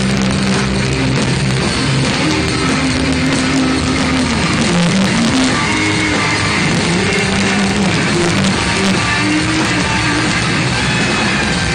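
A live rock band playing loud and steady, with electric guitar to the fore.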